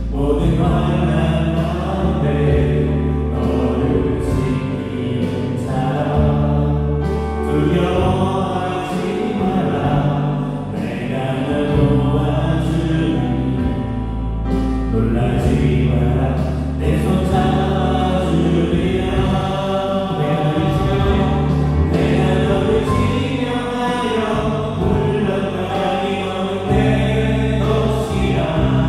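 Live worship band playing a contemporary praise song on keyboards, electric guitar, bass guitar and drums, with sung vocals over it.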